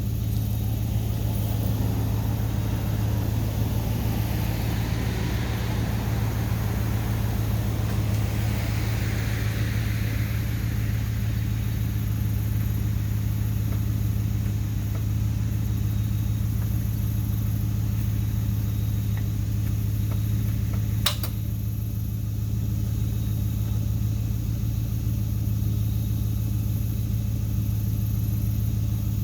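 Truck engine idling steadily: a low, even hum with no rise or fall. A single sharp click about two-thirds of the way through.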